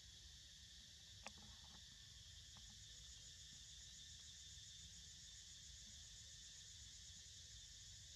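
Faint, steady high-pitched chorus of insects over a low rumble, with one faint click about a second in.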